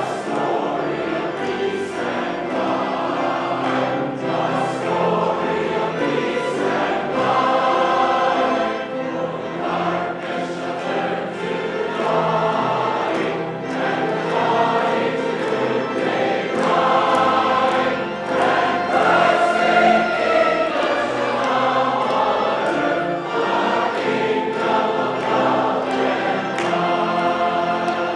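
Church choir singing continuously, sustained choral notes changing pitch as the music moves.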